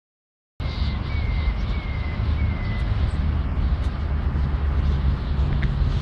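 Street ambience with a steady low rumble of traffic, starting abruptly about half a second in. A few faint short high chirps sound in the first few seconds.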